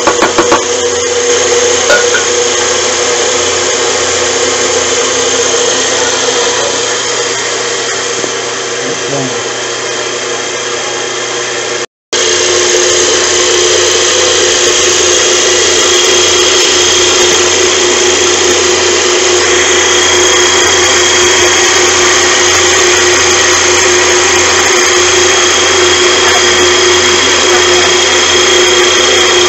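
Electric coffee grinder running steadily as it grinds roasted coffee beans: a constant motor hum and whine with the grinding mixed in, broken by a momentary gap partway through.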